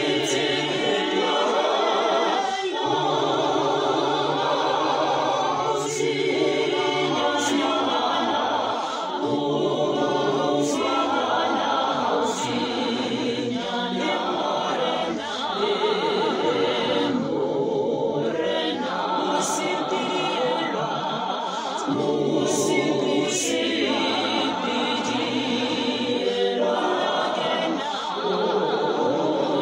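Voices singing a hymn a cappella in close harmony, with no instruments, in phrases of about three seconds each separated by short breaths.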